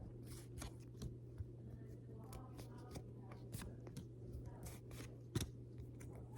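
Faint rustling and light clicks of Pokémon trading cards being handled and flipped through, over a low steady hum.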